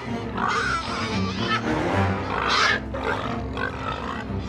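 Background music, over which warthog piglets cry out several times as lionesses catch them. The loudest cry comes about two and a half seconds in.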